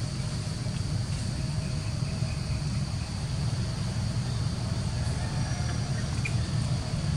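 Steady outdoor background rumble, low and continuous, with a thin steady high-pitched drone above it and no distinct events.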